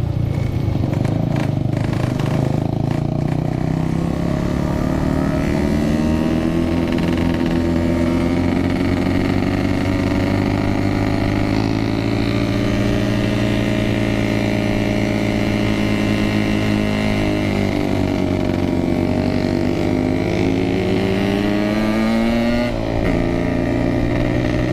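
Yamaha RX-King 135cc two-stroke single-cylinder motorcycle running under way. The engine note falls and rises as the rider eases off and opens the throttle again, with wind rushing over the microphone.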